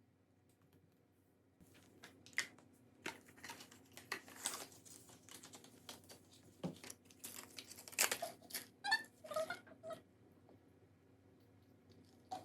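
Irregular rustling, crinkling and small clicks and taps of things being handled, starting about a second and a half in and dying away near the end, with a few short squeaky calls around three-quarters of the way through.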